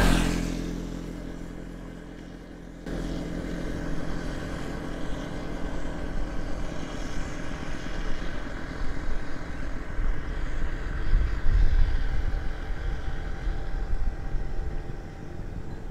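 Steady vehicle running noise with a low rumble, starting abruptly about three seconds in after a fading sound.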